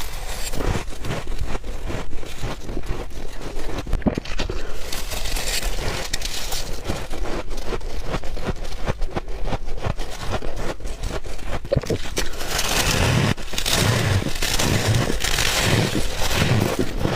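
Close-miked crunching and chewing of soft white ice and freezer frost, a dense run of small crackling crunches. In the last few seconds the chewing gets louder, with heavier bites about once a second.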